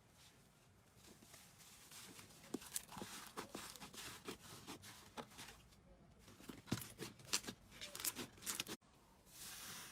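Slime being played with, giving a quick run of small sticky clicks and pops that stops abruptly near the end, followed by a soft hiss.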